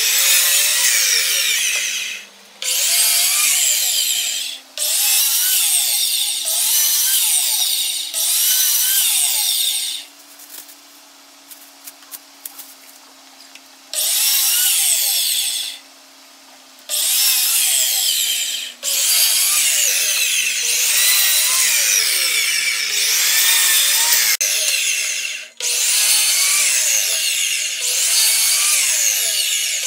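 Chicago Electric miter saw cutting hardwood strips into diamond blocks at a 30-degree angle, over and over: each cut is a loud burst of about two seconds, with short breaks between. About ten seconds in there is a pause of a few seconds with small clicks and knocks of wood being handled, then the cuts go on.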